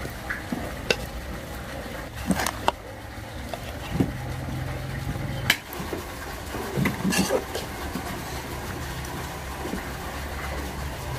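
A few scattered knocks and clinks of a utensil against cookware over a steady low hum.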